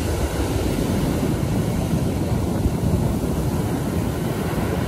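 Large ocean waves breaking and churning on a sandy shore, a steady rumbling roar, with wind rumbling on the microphone.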